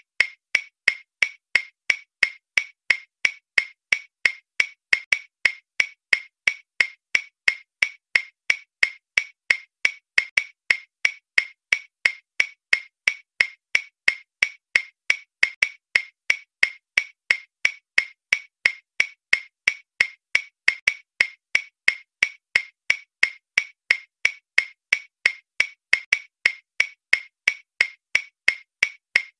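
Clock-style ticking sound effect, about two evenly spaced sharp ticks a second, counting off the time given to answer the questions.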